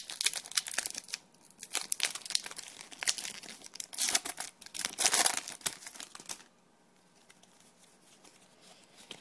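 Pokémon booster pack's foil wrapper being torn open and crinkled by hand, in irregular bursts of crackling that stop about six seconds in.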